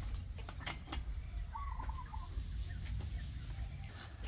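Chickens clucking, with one short call about a second and a half in, among scattered sharp clicks and knocks from a child's homemade metal ride-on toy excavator scooping dirt, over a low rumble.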